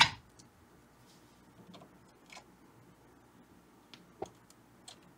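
A sharp click at the start, then a few faint, scattered clicks and taps of small hand tools on an amplifier chassis during resistor replacement and solder work.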